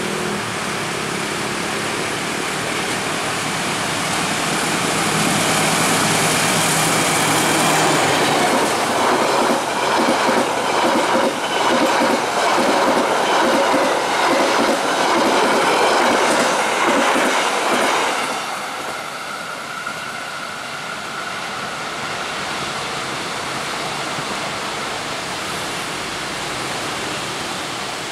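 Diesel-hauled passenger train passing at speed. The locomotive's diesel engine is heard approaching, then the coaches' wheels give a loud, rapid clickety-clack over the rail joints. About two-thirds of the way in it eases to a quieter steady rumble with a thin high whine as the train recedes.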